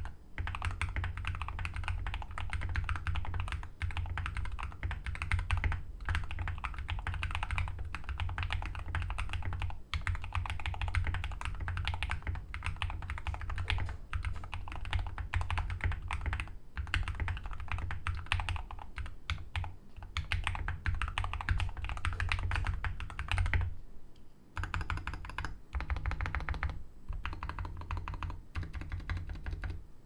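Continuous fast typing on a Keychron K6 mechanical keyboard with Gateron switches: a dense run of key clicks and bottom-outs, broken by a few short pauses near the end.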